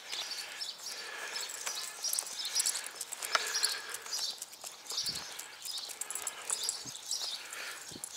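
Small birds chirping repeatedly in short high calls, with a few faint clicks and two soft low thumps.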